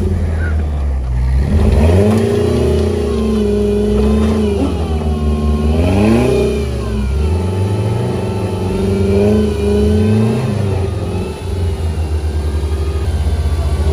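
A lifted off-road pickup's engine revving in deep snow. Its pitch climbs, holds, drops and climbs again several times before settling to a steadier run.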